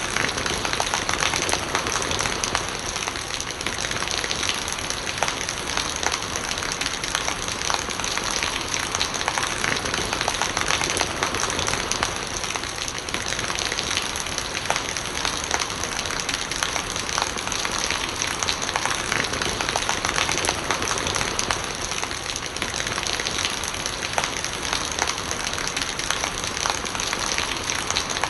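Steady rain falling, with many small drop splashes scattered through it.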